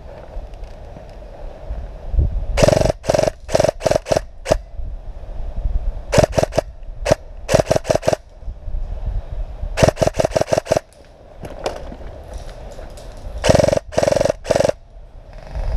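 Airsoft electric gun (AEG) firing four bursts of rapid shots, each a clatter of clicks over the whir of its gearbox motor.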